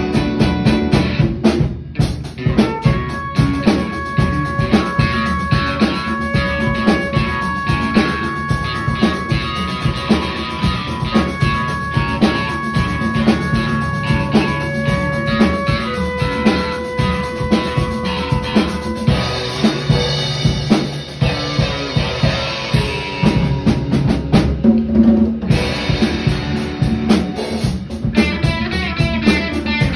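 A rock band playing: a drum kit keeps a steady beat with snare and bass drum, under bass and guitar, with long held notes over the top for much of the first half.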